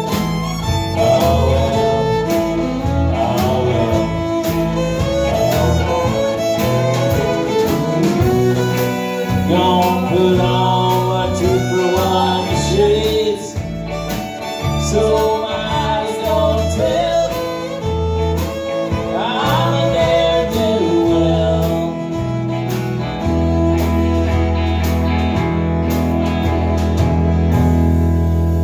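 Live country band playing: vocals over fiddle, electric guitar, electric bass and drums.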